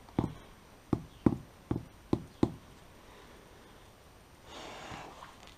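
Rubber mallet tapping a concrete paving block down into its sand bed: about six sharp, irregular knocks in the first two and a half seconds. A soft hiss lasts about a second near the end.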